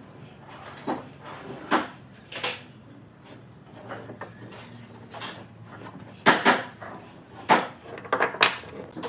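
Wood knocking and scraping on wood as a solid pine cabinet and loose wooden blocks are shifted and set down on a workbench: a run of short wooden knocks, the loudest cluster in the last few seconds.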